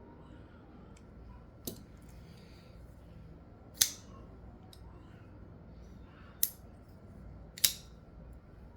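Artisan Cutlery Valor folding knife being flicked open and snapped shut: four sharp clicks spaced a second or two apart, the loudest about four seconds in.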